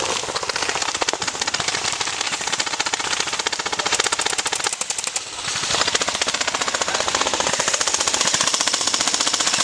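Airsoft guns firing on full auto, a fast, steady clatter of shots in long bursts, with a short break about five seconds in.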